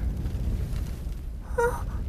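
Low steady rumble with one short, high-pitched squeak about one and a half seconds in: the cry of a little cartoon snake.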